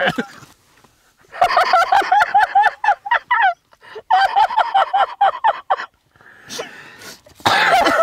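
A man's high-pitched laughter in two long fits, each a quick run of short 'ha' pulses, with a short pause between.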